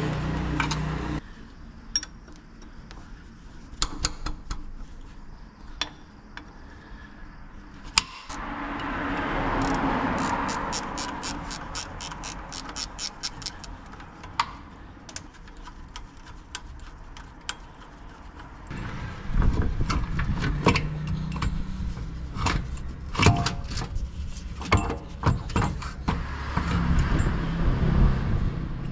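Metal hand tools clicking, clanking and ratcheting during repair work on a van. A low hum stops about a second in and a low hum returns in the second half.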